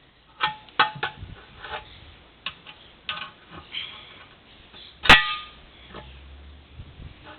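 Steel tire irons clinking and scraping against a backhoe wheel rim as the tire bead is pried off a little at a time, with several short ringing clanks and one loud metallic strike about five seconds in.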